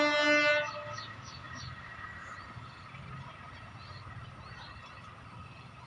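An approaching train's horn sounds loud and steady, then cuts off about half a second in. It is followed by a faint low rumble from the distant train and a few short bird chirps.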